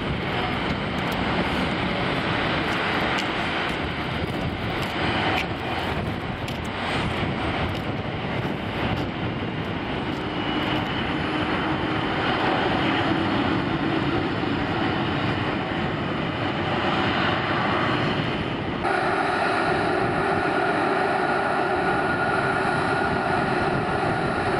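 Boeing 737-300's CFM56 turbofan engines running at taxi power: a steady jet rush with a thin whine. About 19 seconds in the sound changes abruptly, getting a little louder, with clearer steady whine tones.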